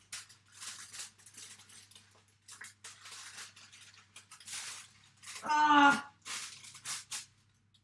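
Sheet of aluminium foil being handled and crumpled, giving irregular crinkling and rustling. A short vocal sound from a woman comes about five and a half seconds in.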